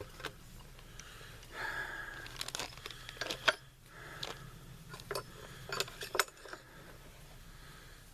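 Metal rifle parts and tools being handled on a bench: a series of sharp clicks and clinks, with rubbing and scraping between them.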